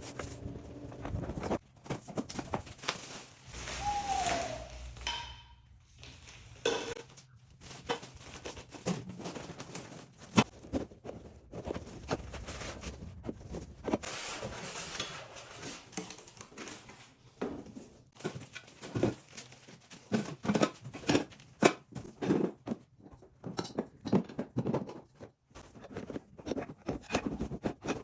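Parts being unpacked: packaging rustling and tearing, with irregular knocks and clatter as pieces are handled and set down.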